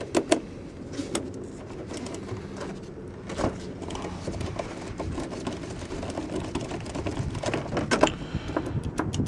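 Irregular clicks and clinks of a small wrench working the positive terminal bolt of a GM side-post car battery as it is loosened, coming more often near the end.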